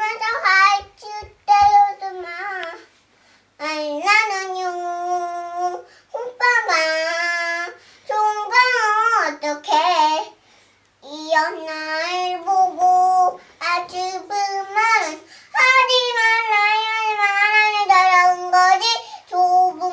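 A small girl singing a Korean pop song unaccompanied, in a string of phrases with held, wavering notes and short breaks for breath between them.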